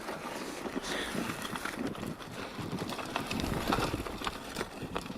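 Farm work with draught animals on stony ground: an irregular clatter of short knocks, hooves among them.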